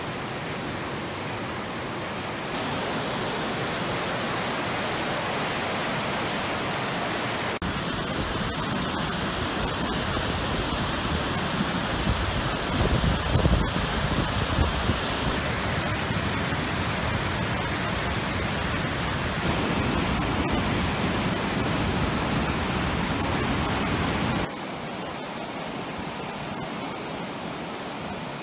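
Swollen river in flood, fast brown white water rushing and churning in a loud, steady wash of noise. The sound shifts abruptly a few times as shots change, with a heavier low rumble for a few seconds about halfway through.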